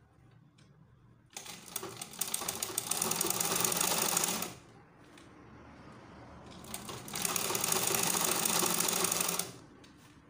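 Sewing machine stitching in two runs of about three seconds each, with a fast, even needle rattle. It stops about four and a half seconds in and starts again a couple of seconds later, while the elastic waistband of the skirt is being sewn.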